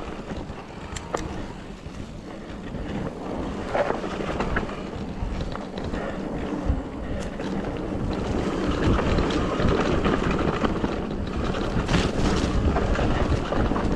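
Wind buffeting the action camera's microphone on a mountain bike descent, mixed with tyre and trail noise and a few sharp clicks and rattles from the bike; it grows louder from about eight seconds in.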